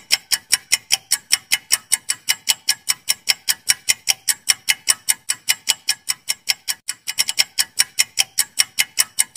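Countdown-timer ticking sound effect: rapid, even clock-like ticks at about five a second, with a brief hitch in the rhythm about seven seconds in.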